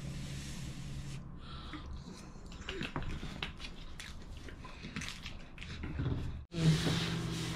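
Quiet eating sounds: chewing and breaths, with scattered small clicks of a plastic spoon and a cardboard food tray. Near the end the sound cuts out for an instant, then comes back with a low steady hum.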